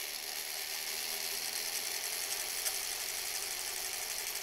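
Vintage sewing machine running steadily at full speed, stitching a long straight seam through folded fabric tie strip.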